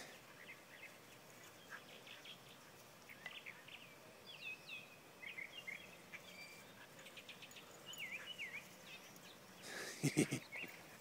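Faint outdoor ambience of wild birds chirping and singing: many short chirps that rise and fall, scattered throughout. A person's voice breaks in briefly near the end.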